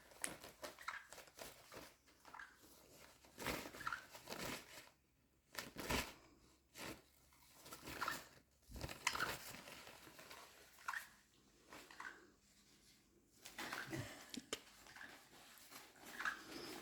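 Pet conure making soft, short chirps amid intermittent rustling and crunching from its play.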